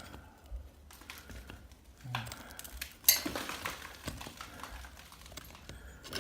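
Small metallic clinks and scrapes as the screws are undone and a loose metal curtain bracket is worked off a lath and plaster wall, with one sharp clink about three seconds in.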